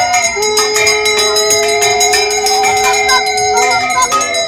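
A conch shell (shankha) blown in one long steady note that breaks off near the end. Under it, a bell rings in quick repeated strokes.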